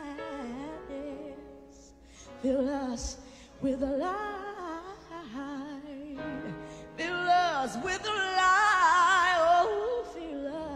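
A woman singing a slow gospel solo into a microphone with piano accompaniment, sliding through long notes with vibrato and runs. About seven seconds in she climbs to louder, higher notes.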